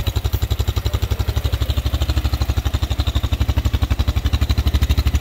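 A 300cc ATV engine idling steadily, an even, rapid pulse of about ten beats a second.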